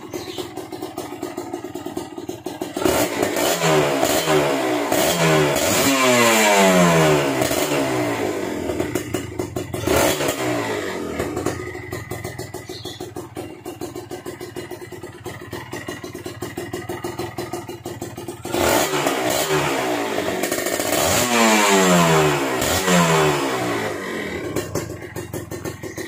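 Kawasaki Ninja RR's single-cylinder two-stroke engine on its stock exhaust, idling and revved up twice, each rev winding back down to idle, with a short throttle blip in between.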